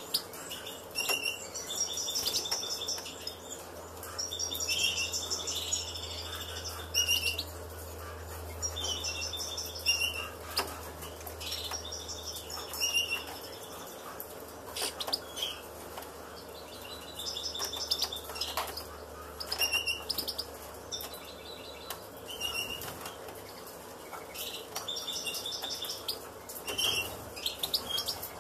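European goldfinches chirping in short high bursts, one every second or two, with scattered sharp clicks between.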